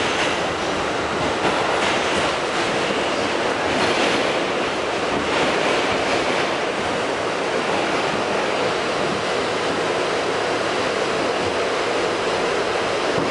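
New York City Subway R68 car running, heard from inside the car: a steady wash of rail and running noise, with brighter swells of hiss in the first several seconds.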